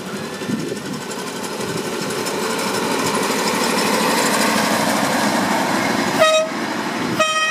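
Ride-on miniature railway train with a diesel-outline locomotive rolling past on the track, its rumble growing louder as it nears. Near the end the train's horn gives two short toots about a second apart.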